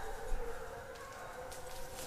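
A pack of petit basset griffon vendéen hounds baying, their overlapping voices blending into a steady chorus.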